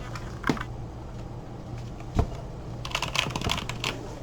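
Computer keyboard being typed on: a single keystroke about half a second in, another about two seconds in, then a quick run of keystrokes about three seconds in, over a low steady hum.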